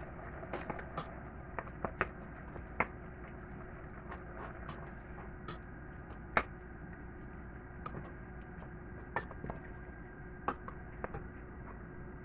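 Wooden spoon knocking and scraping against a stainless steel pot while shrimp are stirred: irregular sharp clicks, the loudest about six seconds in, over a steady low hum.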